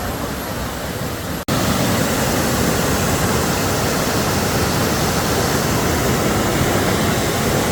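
Waterfall pouring down, a steady, even rush of water. It breaks off for an instant about one and a half seconds in and comes back louder and brighter.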